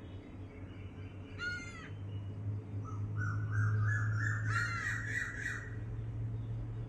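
Birds calling: a single call about a second and a half in, then a run of quickly repeated calls stepping upward in pitch from about three seconds to nearly six. A steady low hum runs underneath, swelling from about two seconds in.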